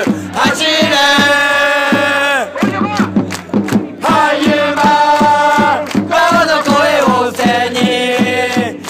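A crowd of football supporters singing a chant in unison, with long held notes twice, over a steady beat.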